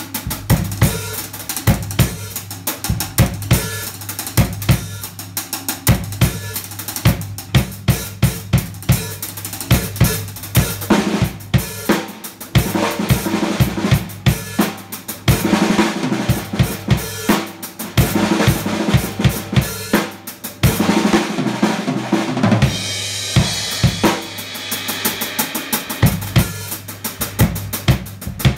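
PDP acoustic drum kit played solo: a driving groove of bass drum, snare and cymbals, with busier fills in the middle and a ringing cymbal wash about four-fifths of the way through.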